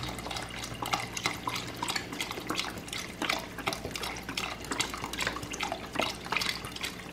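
Chicken broth pouring in a steady stream from a carton into a pot of chunky soup, with many small irregular splashes.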